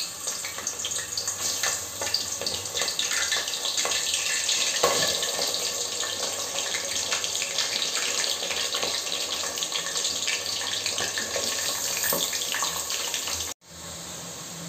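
Raw mutton pieces sizzling and crackling in hot oil and ghee in an aluminium handi as they are dropped in: a steady hiss dotted with small pops. Near the end it cuts off suddenly and comes back as a quieter sizzle.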